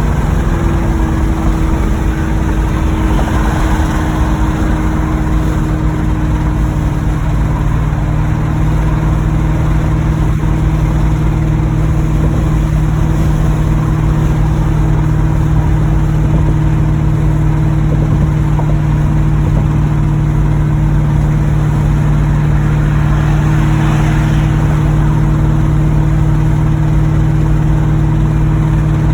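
1986 Chevrolet Monte Carlo SS's 305 V8 engine running steadily as a constant drone, dipping slightly in pitch about a second in. The engine has a rod knock: the owner hears the bottom end knocking.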